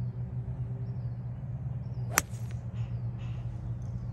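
A golf iron striking the ball off the fairway turf: one sharp crack about two seconds in, over a steady low hum.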